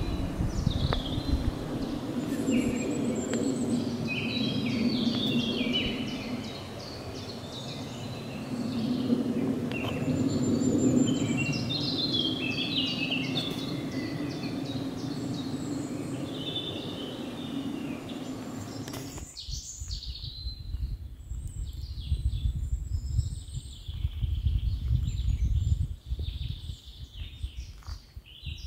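Woodland songbirds singing, several birds chirping and trilling at once over a steady low background hum. About two-thirds of the way through the background changes to an uneven low rumble while the birdsong continues.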